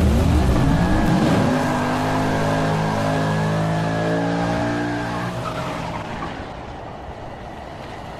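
Racing car engine revving, rising in pitch over the first second, then holding a steady high note before fading out over the last few seconds.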